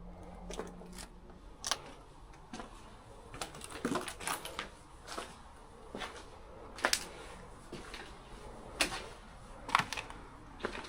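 Footsteps, sharp clicking and crunching steps at about one a second, with a few quicker scuffs in between.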